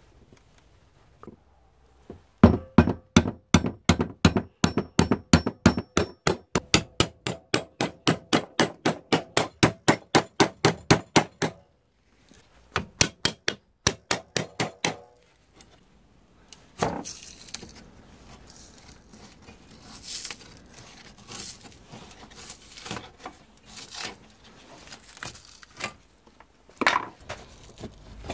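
A hammer striking a screwdriver wedged into a machete's old wooden handle, about four blows a second for some nine seconds, then a shorter run of blows after a brief pause. After that, scattered cracks and splintering as the split wooden handle is pried off the blade.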